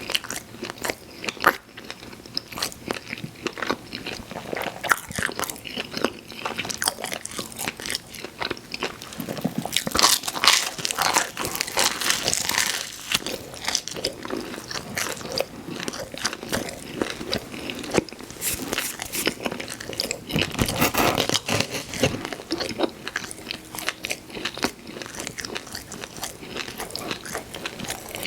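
Close-miked chewing and biting of pizza: crunchy crust and wet mouth clicks, with louder stretches of crunching about ten and twenty seconds in.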